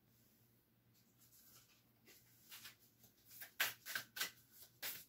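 A deck of oracle cards being shuffled by hand. Little is heard at first, then from about two seconds in comes a run of short flicks of card on card that gets quicker and busier toward the end.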